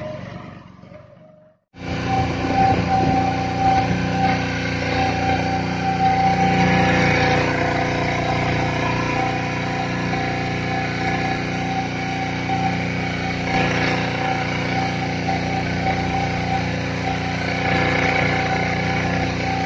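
A small motorboat's engine running at a steady speed over a constant hiss. The sound fades and drops out briefly, then cuts back in abruptly just under two seconds in.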